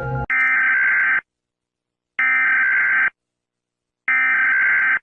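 Emergency Alert System SAME header: three identical buzzy digital data bursts, each a little under a second long and about a second apart, marking the start of a new emergency alert.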